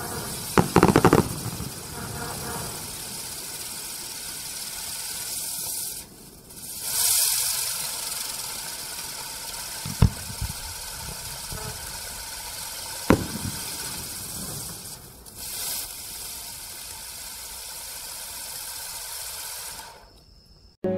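Catherine wheel firework (Cyclone Wheel) spinning and hissing steadily as it throws sparks. The hiss breaks off briefly twice, then fades out near the end. There is a burst of sharp crackles about a second in and single sharp pops about ten and thirteen seconds in.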